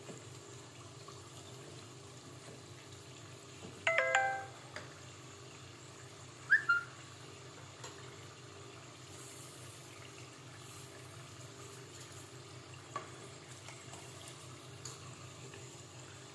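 Oil sizzling and bubbling steadily around glutinous-rice spring rolls deep-frying in a pot, with a few light knocks of a wooden spatula against the pot. About four seconds in there is a brief ringtone-like chime, and a short rising chirp a couple of seconds later.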